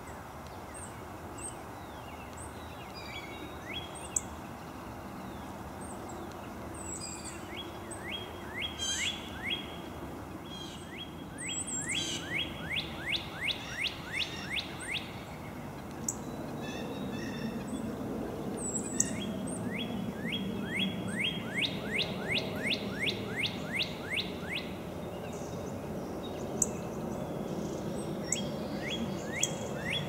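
Northern cardinal singing: long runs of clear whistled notes, each sliding down in pitch, about three a second, repeated phrase after phrase, with a few short high chips between the runs. A low background rumble grows in the second half.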